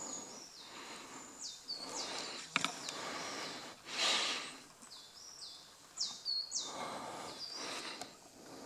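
Dry leaf litter and undergrowth rustling under footsteps in several bursts, over a short high chirp that drops in pitch and repeats about once a second.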